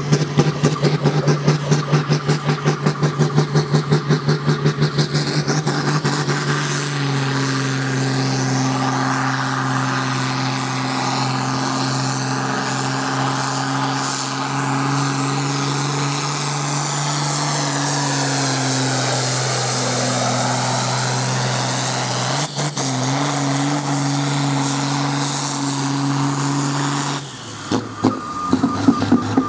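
John Deere 4050 pulling tractor's six-cylinder diesel engine under full power, hauling a weight-transfer sled on its pull. It starts with a fast pulsing note, settles into a steady heavy drone about seven seconds in that sags briefly and picks up again, then drops off sharply near the end as the pull finishes.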